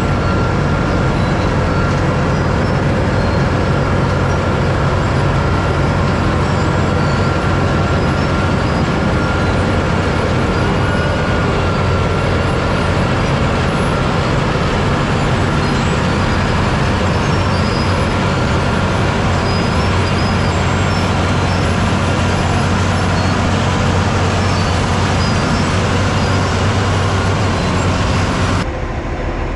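Dump truck's diesel engine running steadily under way, with road noise. The sound changes abruptly near the end.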